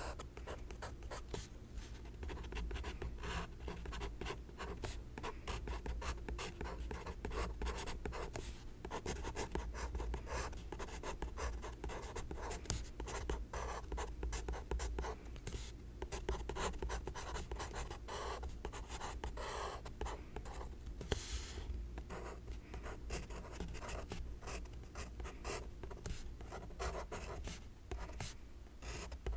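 Pencil writing on sketchbook paper: a close, continuous run of short scratching strokes as words are written out by hand, over a steady low hum.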